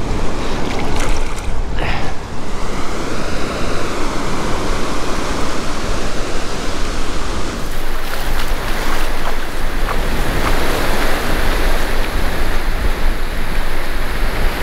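Small waves washing up a sandy beach in the shallows, with wind rumbling on the microphone.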